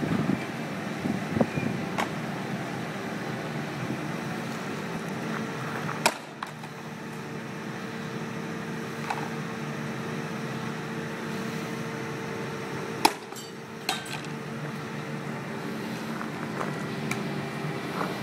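Two heavy blows of a full-length sledgehammer on a fibreglass (e-glass) composite wall panel resting on steel supports, about seven seconds apart, with a few lighter knocks around them. A steady hum runs underneath.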